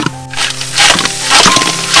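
Blue crab pieces being stir-fried in a pan: a spatula scrapes and knocks through them over sizzling, in surges. Background music plays throughout.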